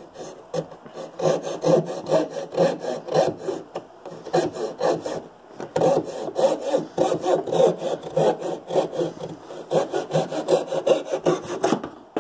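Coping saw cutting through a pine wood block with quick, even back-and-forth strokes, about three a second, pausing briefly twice. The blade is being run straight rather than bent.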